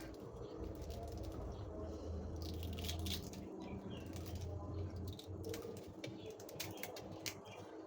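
Irregular clicks, knocks and rustles of kitchen handling over a steady low hum.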